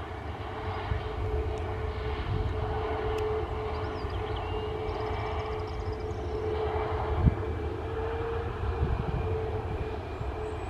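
Ryanair Boeing 737's twin jet engines running steadily, a broad rumble with a constant whine.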